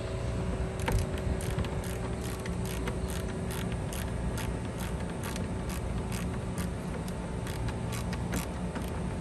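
Scattered ratcheting clicks and small knocks of hand work on engine-bay parts, over a steady hum.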